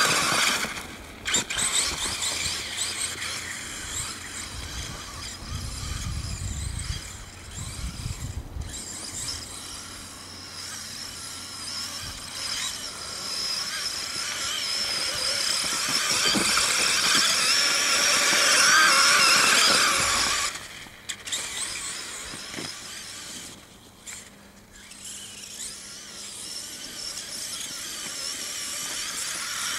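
Traxxas E-Maxx brushless electric RC monster truck's motors and gears whining high-pitched, rising and falling with the throttle as its studded tyres churn through deep snow. The whine builds to its loudest, cuts off sharply about twenty seconds in, then returns more quietly.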